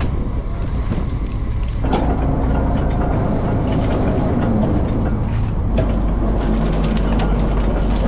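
Fishing boat's engine and net-hauling winch running steadily while the loaded net is hoisted aboard. About two seconds in the machinery gets louder and takes on a humming note, as if coming under load, with light clatter on top.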